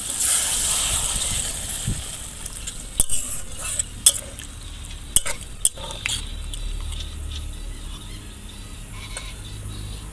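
Fried onion-and-spice masala in a kadai sizzling as water is added to it, the hiss loudest at the start and dying down, with a spatula stirring and knocking against the pan several times about three to six seconds in.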